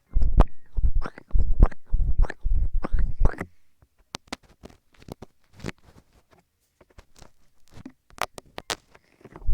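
Hands rubbing and massaging a binaural ear microphone: about five close, deep rubbing strokes, then softer scattered clicks and taps from fingers touching the mic ears after about three and a half seconds.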